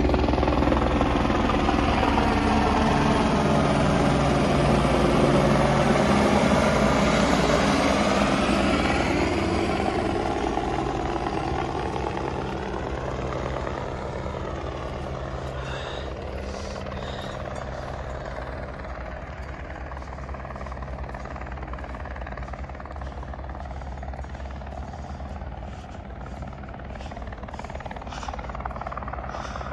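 Helicopter flying close by, its rotor and engine sound loudest for the first eight seconds or so. It then fades over a few seconds to a steadier, fainter drone as it moves off.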